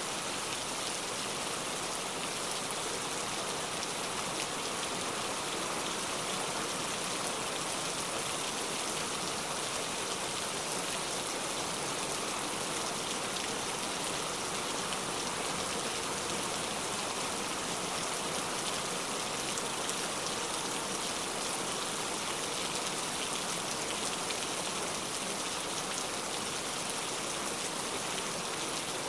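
Rain falling steadily: a dense, even hiss of many drops that does not let up.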